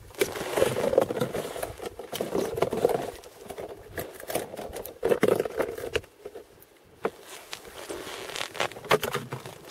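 Ice and slush in a fishing hole being broken up and scraped out with a short-handled hand tool: irregular crunching, scraping strokes with sharp clicks, pausing briefly about six seconds in.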